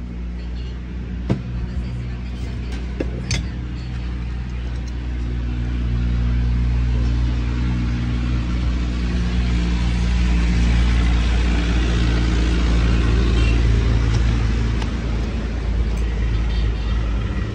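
A motor vehicle engine running steadily, growing louder about six seconds in and holding there, with a few sharp metallic clicks from alternator parts being handled on the bench.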